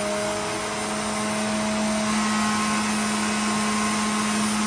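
Hamilton Beach centrifugal juicer running on its high setting while fruit is pressed down the feed chute and juiced: a steady motor hum and whine, with the pitch of the whine shifting about two seconds in.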